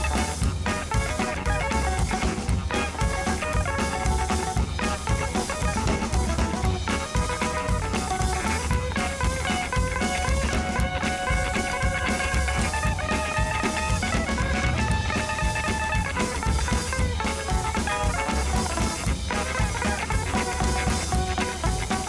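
Background music: a rock instrumental with guitar, bass and a steady drum beat.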